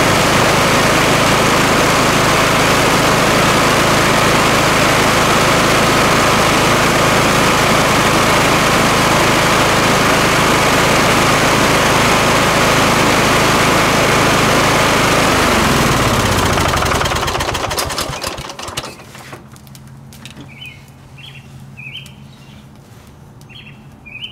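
Kohler Courage lawn-tractor engine running steadily on a short test run after a valve clearance adjustment. About sixteen seconds in it is switched off, winds down falling in pitch and stops. A few bird chirps follow near the end.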